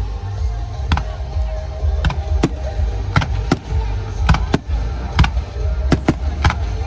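Aerial fireworks bursting, about a dozen sharp bangs at irregular intervals over a continuous low rumble, with music playing underneath.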